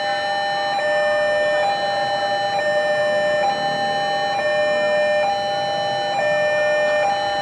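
Railway level-crossing warning alarm ringing, an electronic two-note chime that switches between a lower and a higher tone about once a second, warning of an approaching train.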